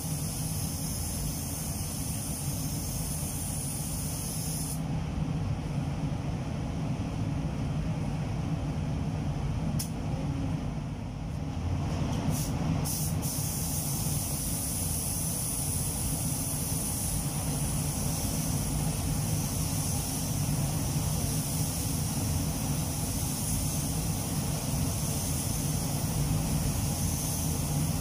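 Spray booth ventilation running steadily, with the high hiss of a compressed-air spray gun spraying clear coat onto car panels. The hiss stops about five seconds in, a few short clicks follow, and it starts again about thirteen seconds in.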